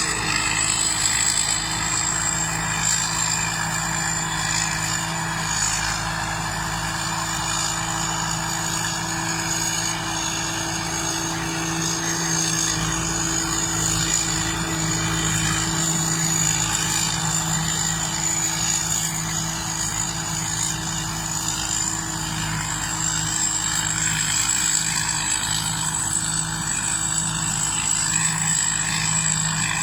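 Combine harvester running steadily: a continuous engine and machinery drone with a thin high whine held over it.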